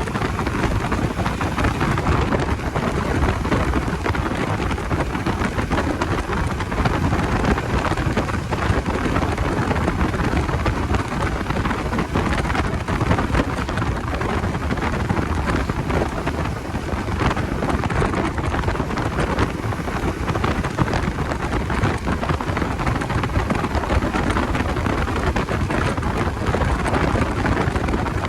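Steady rush of wind over the microphone of a motorcycle under way.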